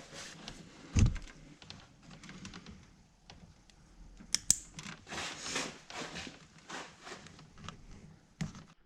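Hands handling wiring and small plastic parts: scattered light clicks and rustles, with one louder knock about a second in.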